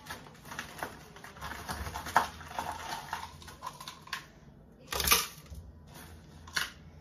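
Frozen mango chunks being dropped into a blender jar: a run of small clicks and clatters with rustling, and a louder knock about five seconds in.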